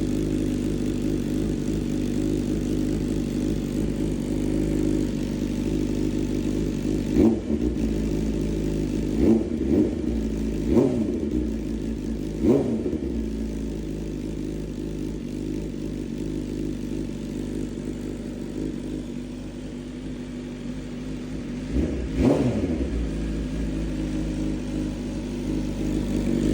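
BMW S1000RR inline-four idling steadily through an Akrapovič header on a stage 2 tune, blipped five times. Each blip is a quick rev that rises and drops back to idle: four in the first half and one about two thirds of the way in.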